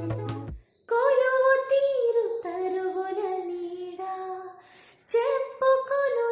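A young female singer singing solo with no accompaniment, a high clear melody in held notes. A short electronic music intro cuts off just before her first phrase, and she pauses briefly about four and a half seconds in before starting the next phrase.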